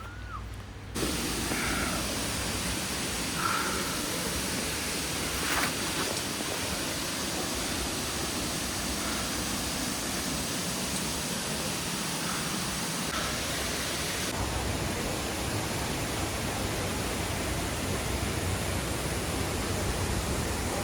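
Steady rush of falling water from a waterfall. It starts suddenly about a second in and changes slightly in character around fourteen seconds in.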